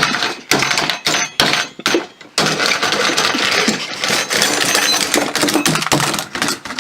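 Hard parts clattering as they are handled: several separate sharp knocks, then from about two and a half seconds in a dense, continuous rattling clatter.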